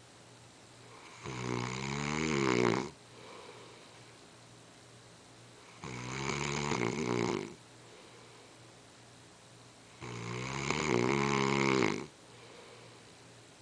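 A man snoring: three long snores about four seconds apart, each lasting one and a half to two seconds and wavering in pitch, with faint breathing between them.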